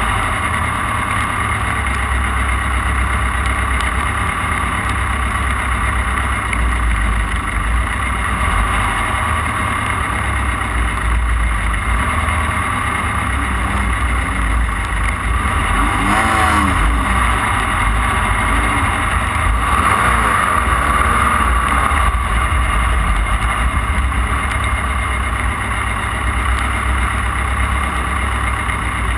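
Off-road race car's engine running hard under way, heard from on board over a heavy, steady low rumble. The engine note rises and falls a couple of times past the middle.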